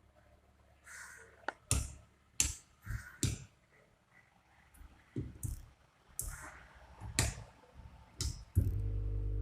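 Quick 900 SMD rework station being handled and set up for testing, with a string of separate sharp clicks and knocks. About 8.6 s in, a loud steady buzz starts abruptly as the station is switched on.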